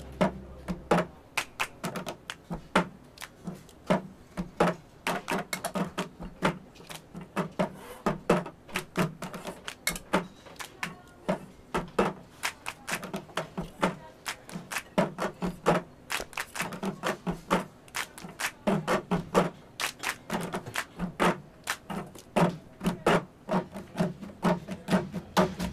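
Many people playing the cup game in unison: plastic cups rapped, slapped and passed on tabletops, mixed with hand claps, in a quick steady rhythm of sharp knocks.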